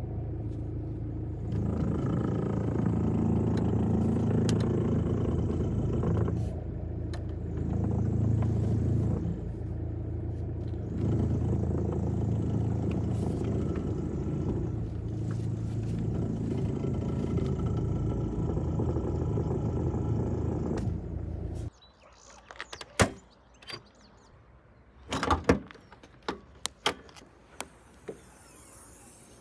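Volkswagen Passat B5 running, with a noise from the steering that swells louder in four stretches as the steering wheel is turned, the fault the car is shown for. The engine cuts off suddenly about three-quarters of the way through, leaving a few scattered clicks and knocks.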